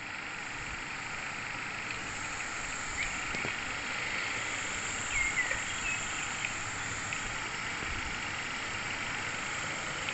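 A steady, high chorus of insects such as crickets or cicadas, with a few short chirping calls, once about three seconds in and several more between five and six seconds.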